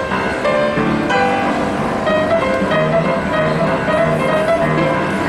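Upright piano played live, a continuous flowing piece with many notes over a steady lower part.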